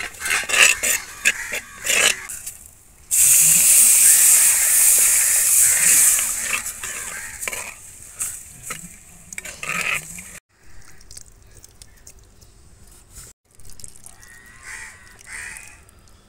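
A spoon scraping and knocking against a clay pot while stirring dry chili masala, then a loud hiss lasting about four seconds as liquid goes into the hot pot and the masala sizzles, followed by scattered clicks of stirring.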